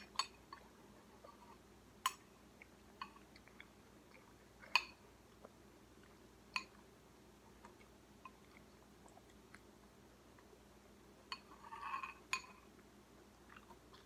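Metal spoon clinking against a ceramic cereal bowl at irregular intervals as spoonfuls are scooped, with a short burst of louder eating noise near the end.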